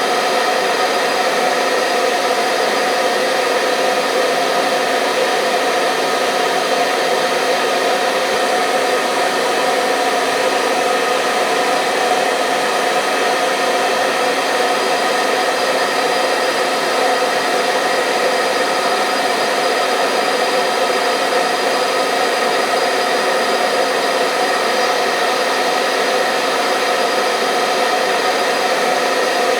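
Hair dryer blowing continuously at a steady speed: an even rushing of air over the motor's constant hum, with no change in pitch or level. Played as white-noise-style sound for soothing a baby to sleep.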